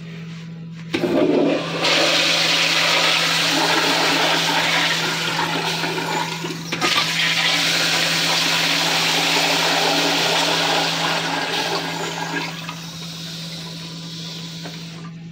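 Kohler toilet flushed by its flushometer valve with toilet paper in the bowl. The flush starts about a second in, runs as a loud rush of water for about ten seconds, then tapers into a quieter refill near the end. A steady low hum sounds underneath.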